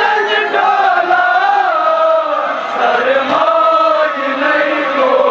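Men's voices chanting a Kashmiri noha, a mourning lament, in a slow, drawn-out melody.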